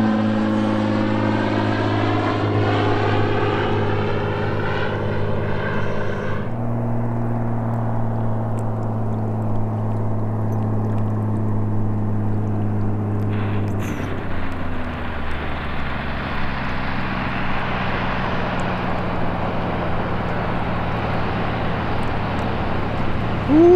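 Single-engine floatplane's propeller engine running steadily as it passes overhead, then after a cut the plane coming in to land on the water. From about halfway through the engine note drops back and a rushing hiss builds as the floats touch down and throw spray.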